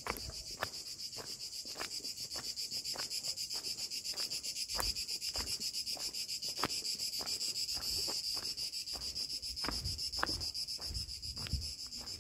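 Steady high chirring of insects, with footsteps walking on a path at an even pace, a little under two steps a second.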